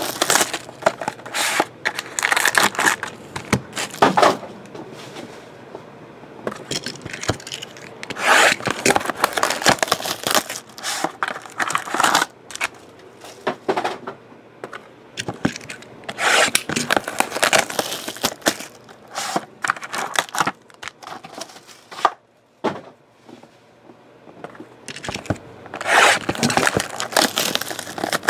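Plastic shrink wrap being torn and crinkled off sealed trading-card boxes, with the cardboard boxes scraping as they are handled, in irregular bursts with a short lull about three-quarters of the way through.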